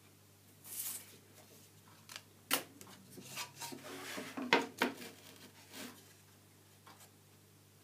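A thin wooden board being handled on a table-saw crosscut sled with the saw switched off: a brief scrape about a second in, then a run of light wooden knocks and taps as the board is lifted and set back down against the fence, the sharpest knocks a little after four seconds in.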